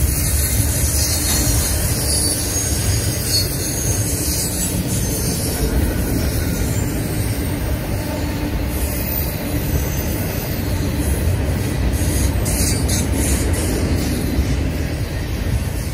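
Intermodal freight train of double-stack container well cars rolling past, a steady rumble of steel wheels on the rails.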